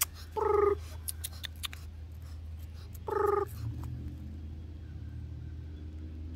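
An American bully puppy gives two short whines, about three seconds apart, over a steady low hum. There are a few sharp clicks from handling in the first second or two.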